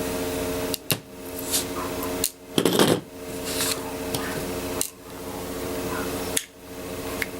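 Small metal parts and tools clinking and clattering on a hard surface as an airsoft gun is taken apart, with the loudest clatter a little under three seconds in, over a steady electrical hum.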